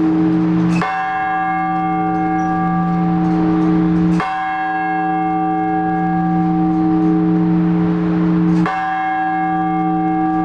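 One large Orthodox church bell struck three times in slow, measured single strokes about four seconds apart. Each stroke rings on into the next, with a deep hum under it. This is the blagovest, single measured strokes on one of the big bells.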